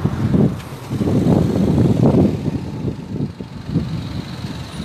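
Cars driving past at close range, their engines and tyres making an uneven noise that swells as the nearest car goes by.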